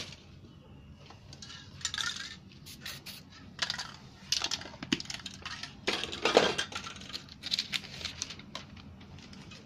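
Glossy paper leaflet page rustling and crinkling as it is handled and pressed onto a wet spray painting, with scattered sharp clicks; the loudest rustle comes about six seconds in.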